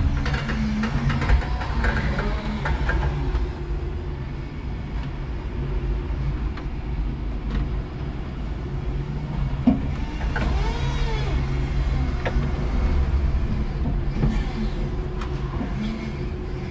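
Electric forklift running, its motors whining up and down as it manoeuvres, over a steady low hum, with a few knocks and clanks.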